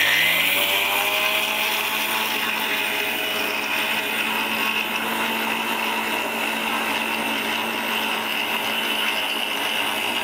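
Electric mixer grinder running steadily, grinding granulated sugar into powder in its small stainless-steel jar.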